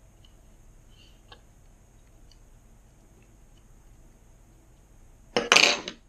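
A few faint handling ticks, then a brief loud clatter of hard objects knocking on a desk about five and a half seconds in, with two quick knocks close together.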